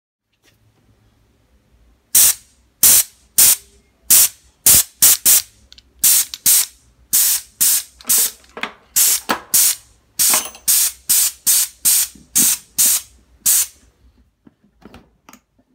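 Compressed air hissing out of a hand-held tyre inflator gun, fed from a home-made air tank, in a quick series of about two dozen short blasts, roughly two a second, as the trigger is pressed and released.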